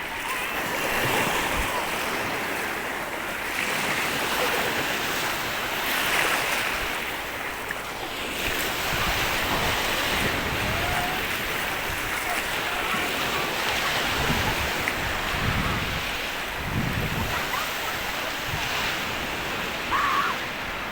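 Sea waves washing onto the shore in slow, surging rushes, with wind buffeting the microphone in low rumbles, strongest a little past the middle.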